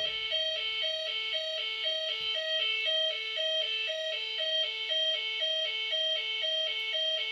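Bellfruit Firecracker fruit machine playing its electronic two-note tune, a high and a low beep alternating steadily about four notes a second.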